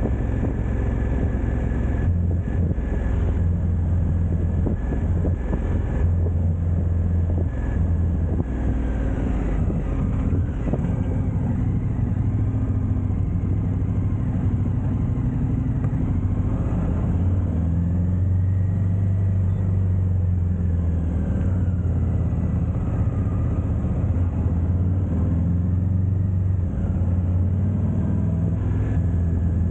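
KTM twin-cylinder motorcycle engine running steadily while the bike is ridden along the road, over a haze of wind and road noise. Its pitch shifts a little up and down in the second half.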